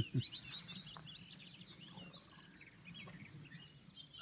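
Wild woodland birds singing: a dense run of quick, high chirps and trills that thins out after about a second and a half, with scattered notes later. A few low thumps at the very start.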